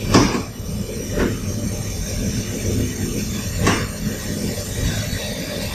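Steady rumble and hiss of a boiler room with live steam lines, with three short knocks as a drip-leg valve is worked by hand.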